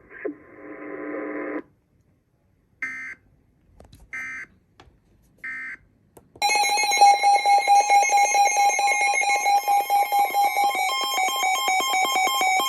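Emergency Alert System signalling for a new alert, a tornado warning. First come three short screeching SAME digital header bursts about a second and a half apart. Then, from about six seconds in, the loud, steady two-tone EAS attention signal starts and holds.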